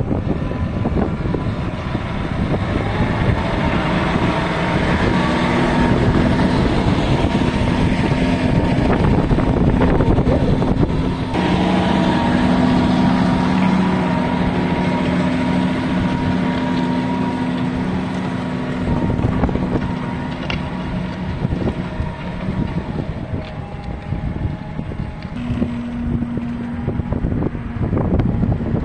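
John Deere 6215R tractor's six-cylinder diesel engine running steadily under load while pulling a six-furrow reversible plough, its note shifting a couple of times. Wind buffets the microphone.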